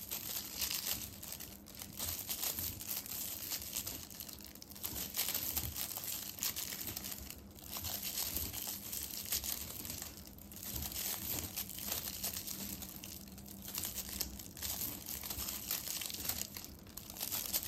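Flat polyethylene raffia tape (Suzuran tape) crinkling and rustling as it is pulled through single crochet stitches with a crochet hook, in spells with brief lulls about every three seconds.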